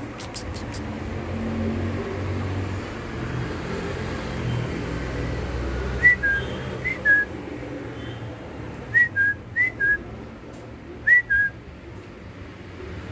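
Human whistling of short two-note calls, each a quick high note dropping to a lower one, in three quick groups starting about halfway through. A steady low rumble runs underneath.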